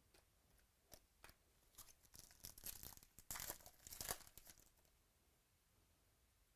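Faint crinkling and crackling of plastic card packaging being handled, a run of sharp crackles that is busiest and loudest about three to four seconds in.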